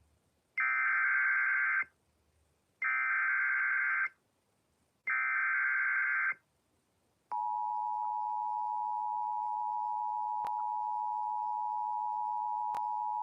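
Emergency Alert System tones announcing a severe thunderstorm warning. First come three short bursts of SAME digital header data, each a little over a second long, with a pause between them. About seven seconds in, the steady two-tone attention signal starts and holds.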